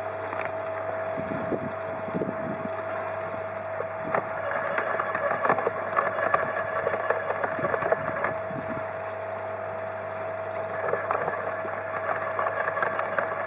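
Electric garden shredder running with a steady whine while thin branches are fed in; the wood crackles and snaps as the blades chew it up, from about four seconds in to about nine seconds, and again near the end.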